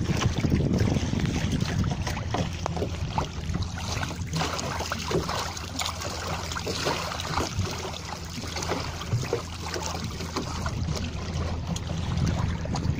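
Water rushing and splashing against the hull of a small outrigger sailing boat under way, with many small slaps and splashes in the middle. Wind buffets the microphone throughout, more strongly near the start and the end.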